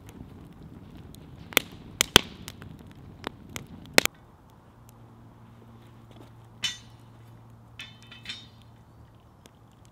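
Wood fire crackling, with sharp pops from the burning logs for about four seconds. Then a few ringing metallic clinks as a metal cooking tripod is set up over the fire.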